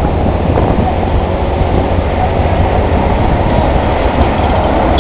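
Steady low rumble of a vehicle driving along a road: engine, tyre and wind noise, with passing traffic.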